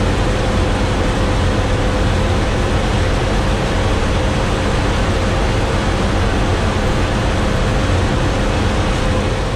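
Heavy truck's diesel engine running steadily under load on a climb, heard inside the cab with loud road and cab noise and a steady whine.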